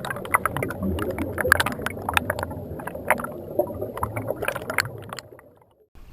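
Water splashing and sloshing: many short, sharp splashes over a low rumble, fading out near the end.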